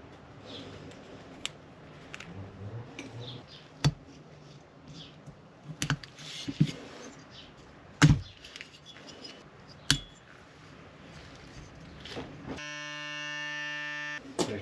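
Small metal chainsaw engine parts being handled and set down on a workbench: light rustling with sharp metallic clicks and clanks every couple of seconds. Near the end, a steady buzzing tone sounds for about two seconds and cuts off suddenly.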